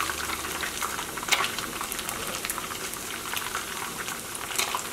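Beer-battered fish pieces frying in shallow hot canola oil: a steady sizzle with scattered pops and crackles, a couple of them sharper.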